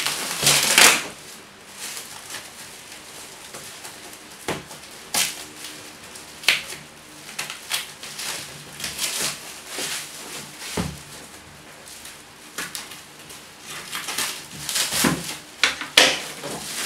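Scissors snipping and plastic wrap and packing tape crinkling and tearing as a shrink-wrapped cardboard shipping box is cut open, in irregular rustling bursts with sharp clicks. It is loudest about a second in and again near the end.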